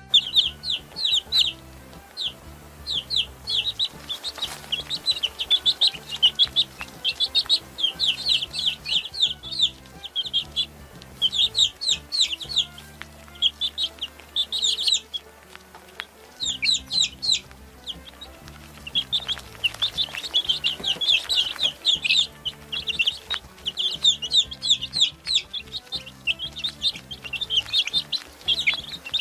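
A group of baby chicks peeping: a dense stream of short, high chirps with a brief lull in the middle.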